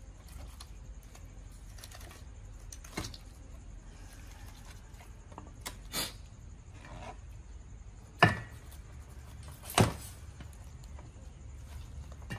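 Sharp clicks and knocks of tableware on a dining table, four in all, the two loudest about eight and ten seconds in, over a low steady hum.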